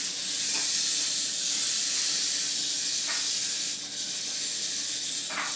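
Wind-up toy's clockwork motor whirring steadily as it runs: a high, hiss-like buzz.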